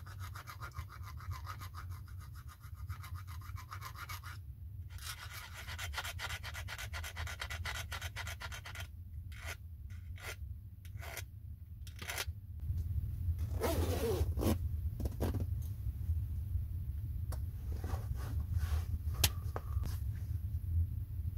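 Small steel file rasping across the teeth of a crosscut saw in quick, short strokes as the saw is sharpened, with a brief pause just after four seconds. The filing stops at about twelve seconds, giving way to handling and rustling noises.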